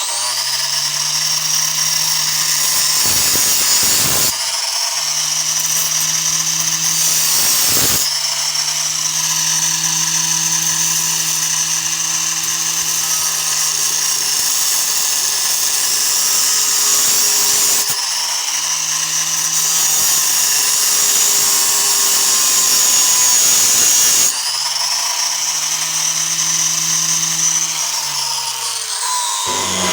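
Angle grinder with a large abrasive cutoff wheel cutting into a brass door knob that has a steel core. The motor runs steadily under the screech of wheel on metal, dipping in pitch several times as the wheel bites harder, and winds down near the end.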